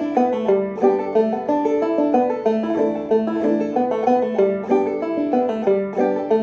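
Open-back banjo played clawhammer style, picking an old-time fiddle tune in A modal (sawmill) tuning with a steady, driving rhythm of plucked and brushed notes.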